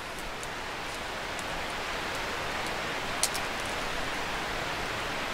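Steady rushing of a flowing stream, an even hiss of water, with a faint click about three seconds in.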